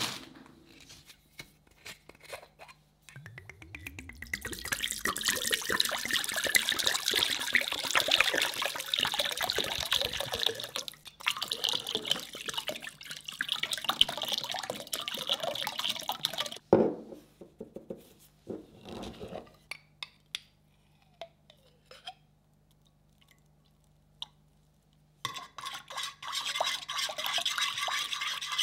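Dark sauce poured in a steady stream from a bottle into a glass bowl, then a sharp knock about halfway through. Near the end, a utensil stirs the sauce against the glass bowl.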